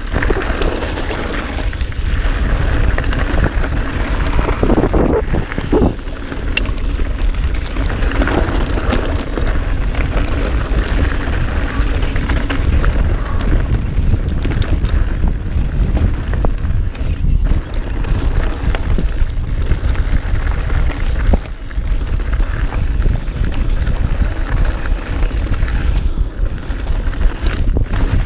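Wind buffeting a helmet or chest-mounted action-camera microphone during a fast mountain-bike ride, a steady rumbling rush with the noise of tyres on the trail and a few sharp knocks from the bike.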